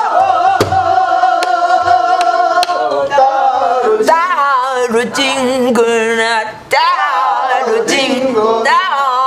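Korean folk gueum, wordless vocables sung in long held notes that take on a deep, wavering vibrato from about four seconds in. Sharp strokes on a buk barrel drum with a stick mark the beat roughly once a second.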